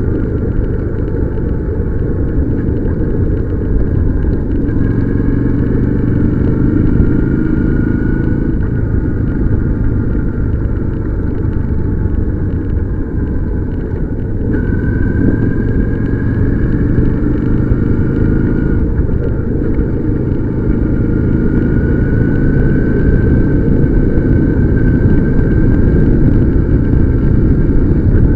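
Motorcycle engine running under way over a heavy low rumble. Its pitch climbs steadily as it speeds up and drops sharply at several gear changes.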